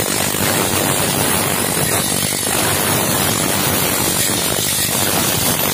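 Steady, harsh mechanical running noise with a strong hiss, unbroken and even in level throughout.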